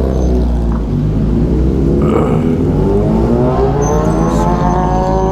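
Motorcycle engine accelerating, its pitch rising steadily over about three seconds, over a constant low engine rumble.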